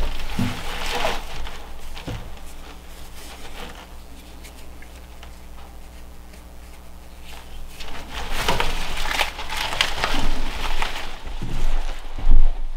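Dry onion skins, roots and stalks rustling and crackling as bunches of garden onions are handled. The rustling is busiest near the start and again through the last few seconds. A faint steady hum sits under the quieter middle.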